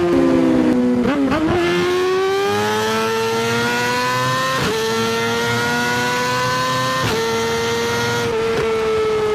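Motorcycle engine running hard under way, its pitch dipping briefly about a second in and then climbing slowly, with short breaks in the note a few times.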